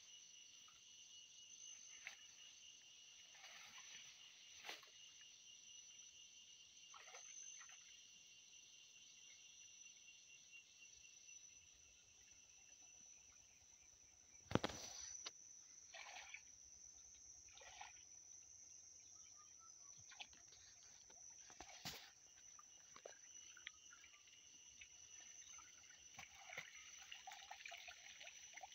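Faint steady chirring of insects in a high, unbroken tone, with scattered short splashes and knocks from hands working in shallow muddy water. One sharper knock comes about halfway through.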